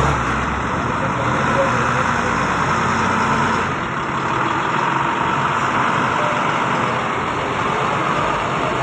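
Hino bus's diesel engine idling steadily.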